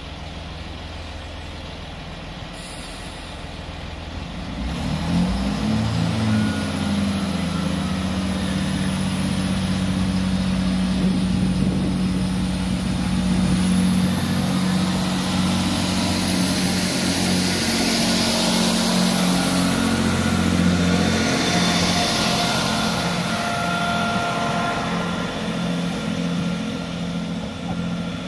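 Class 165 diesel multiple unit's underfloor diesel engines opening up as it pulls away from the platform. A low engine drone swells about five seconds in, rises briefly in pitch, then holds steady with wheel and rail noise as the unit passes, and a faint high whine rises about halfway through.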